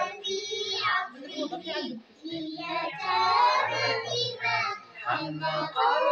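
Young girls singing, their voices bending up and down with some notes held.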